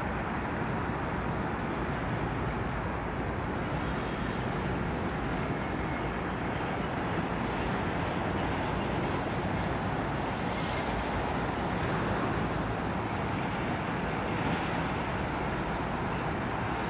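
Jet engines of a Boeing 787 airliner during its landing roll-out on the runway: a steady, even rushing noise with no distinct tones.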